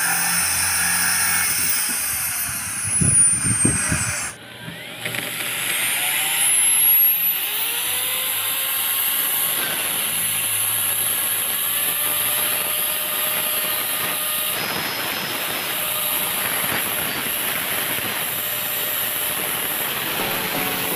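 Corded electric drill running a hole saw through the plastic wall of a water tank, cutting a hole for a 1-inch pipe fitting. Its motor whine slides down in the first few seconds, breaks off about four seconds in, then rises again and runs steadily as it cuts.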